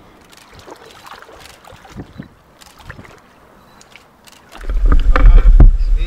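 Faint lapping and small splashes of shallow water around a large carp being handled. About four and a half seconds in, a sudden loud low rumble of buffeting on the microphone starts, with heavier sloshing over it.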